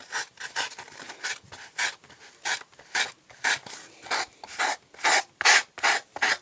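Polystyrene foam being rasped by hand in repeated back-and-forth strokes, about two a second, growing stronger toward the end, as the foam boat hull is worked to shape.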